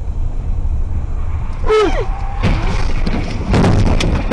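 A car crash heard from inside a car over steady road rumble. A short falling cry about two seconds in is followed by loud crashing bursts of noise, the loudest about a second before the end.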